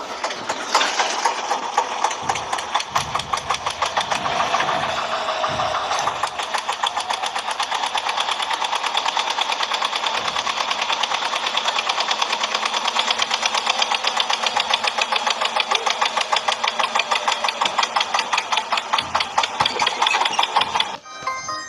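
Toy tractor's engine sound effect, played through a small speaker: a start-up with a falling tone, then rapid, even chugging like a diesel at idle, which cuts off near the end.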